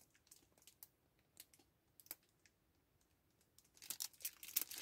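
Faint scattered clicks and ticks of a pack of paper sheets and its packaging being handled, then the packaging crinkling more loudly from about four seconds in.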